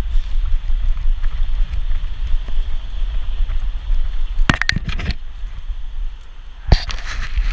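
Rumbling and bumping of a GoPro camera strapped to a trotting small dog's back, jostled with each stride. About four and a half seconds in comes a quick cluster of light jingling clicks, and a single sharp click follows near the end.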